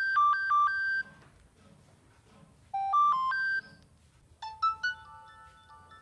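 Nokia 6600 mobile phone ringtones. Two short phrases of a bright electronic beeping melody, each about a second long, are separated by a pause. About four and a half seconds in, a different ringtone starts with longer ringing notes.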